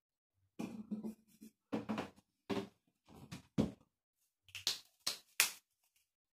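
Household items being handled: a run of short knocks and rustles, ending in a few sharper clicks about four and a half to five and a half seconds in.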